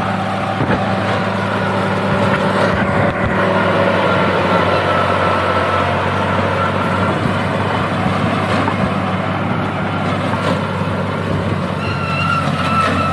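A 480 tractor's diesel engine running steadily while it drives a reaper binder that is cutting wheat.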